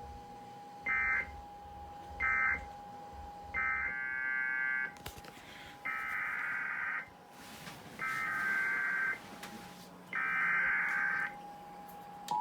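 Emergency Alert System SAME digital data bursts, the rasping modem-like tones of the alert code. Two short bursts come about a second apart, then four longer bursts of about a second each, over a faint steady tone. The bursts are the end-of-message code closing one warning, followed by the header code opening the next.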